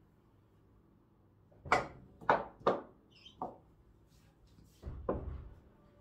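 Sharp knocks from play on a small wooden mini pool table, beginning with the cue striking the cue ball and followed by three more knocks over the next two seconds. A duller, lower thud comes about five seconds in.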